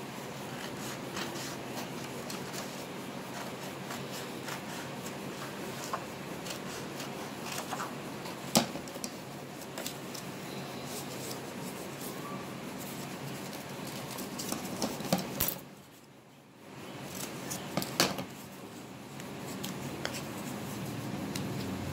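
Scissors snipping a sheet of pastel paper, with the paper being handled in between: a scatter of small snips and clicks over a steady background hiss, a few of them sharper. The sound drops away briefly about sixteen seconds in.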